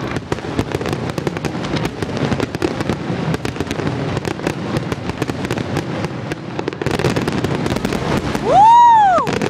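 Aerial fireworks crackling, a dense run of rapid pops. Near the end a loud whistle rises and falls once.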